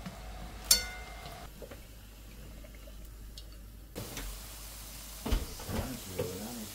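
A pan of boneless chicken feet bubbling in water, with one sharp clink about a second in. From about four seconds in, minced garlic sizzles in oil in a nonstick wok, with a knock a little later.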